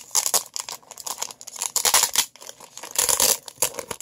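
Clear plastic wrapping around a double pack of baseball cards crinkling and tearing as it is pulled open by hand, in three or four loud bursts of rustling.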